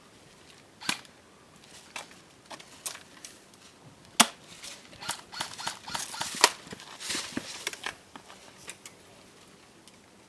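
Airsoft guns firing irregular shots as sharp pops. The loudest comes about four seconds in, a quick cluster follows between about five and seven seconds, and only a few faint shots come near the end.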